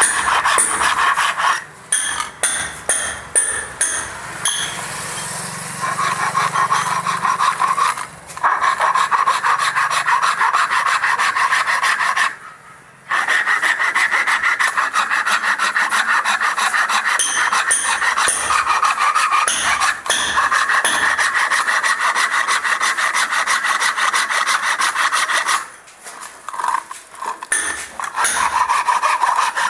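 Hacksaw blade cutting through the side of a wooden box in fast back-and-forth rasping strokes. The strokes pause briefly a few times, longest about twelve seconds in, and go stop-start for a moment near the end.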